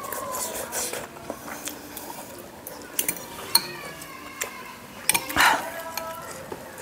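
Metal fork and spoon clinking and scraping against a ceramic soup bowl as noodles are stirred and broth is scooped, with a few sharp clinks in the middle and a brief louder noise about five seconds in.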